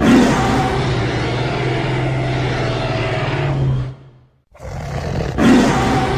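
Dinosaur roar sound effect: a long roar over a steady low drone, fading out after about four seconds. After a brief gap a second, similar roar builds up.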